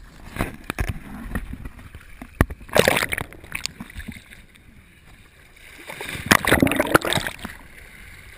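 Ocean water splashing and washing up close, in two loud surges: a short one about three seconds in and a longer one around six to seven seconds in. Scattered sharp knocks fall between them.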